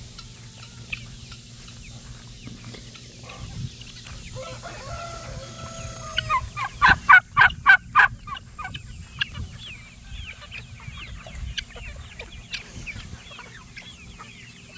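Free-ranging chickens clucking, with a held crow-like call about four and a half seconds in and then a run of loud, quick repeated calls, about four a second for two seconds, before the flock settles back to scattered clucks.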